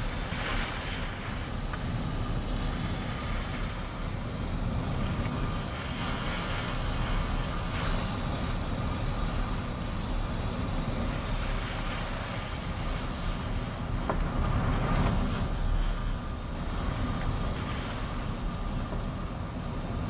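Strong typhoon wind blowing in gusts, with low rumbling buffeting on the microphone. It swells to its strongest gust about three quarters of the way through.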